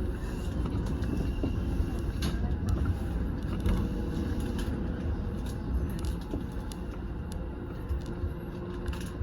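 Electric commuter train running, heard from inside: a steady low rumble of wheels on rail, with a few sharp clicks and knocks.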